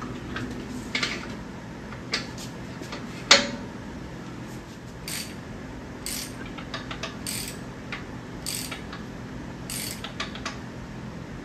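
Metal clicks and clanks from the Pontiac 400 short block being worked on by hand at the crank and gear-drive end. There are short bursts of ratchet-like clicks about once a second in the second half, and one sharp clank about three seconds in.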